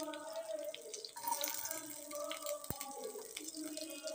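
Carrot pieces frying in hot oil in a non-stick kadai: a light, crackling sizzle of oil spitting around the pieces. One dull knock about two and a half seconds in.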